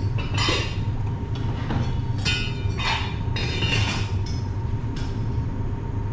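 Steady low hum with scattered short clinks and knocks of metal kitchenware: stainless pans, bowls and utensils being handled on a counter.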